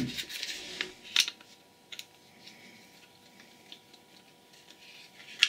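Small plastic handling sounds from a pocket breathalyser being opened with a screwdriver. A brief scraping rub comes first, then a sharp click about a second in and another smaller click, faint ticks, and a last sharp click near the end.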